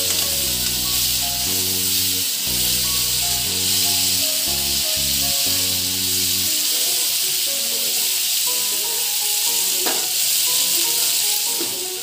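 Muga silkworm pupae and onions frying in hot oil in a wok, a steady loud sizzle as they are stir-fried, with background music whose bass line drops out about halfway through.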